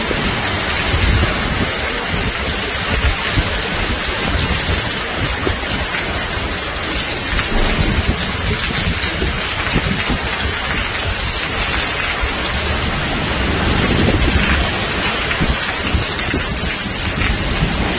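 Heavy rain and gusty wind on banana plant leaves: a dense, steady hiss of rain with a low rumble that swells and fades with the gusts.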